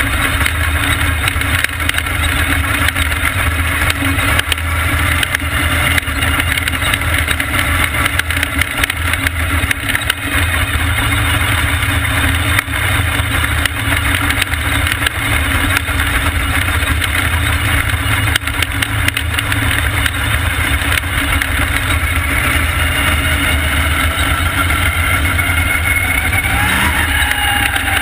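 Vintage supermodified race car's engine running hard at racing speed, heard from on board: a loud, steady engine sound mixed with rushing noise, with the pitch climbing near the end as it accelerates.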